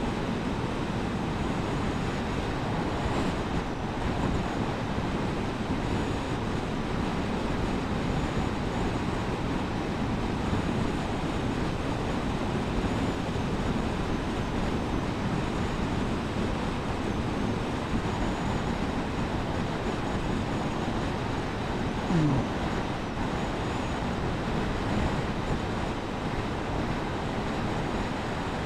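Suzuki GSF1250 Bandit motorcycle on the move: a steady rumble of engine, wind and road noise. A short drop in pitch comes about 22 seconds in.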